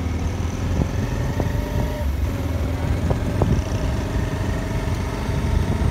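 Car engine and tyre noise heard from inside the moving car's cabin: a steady low hum.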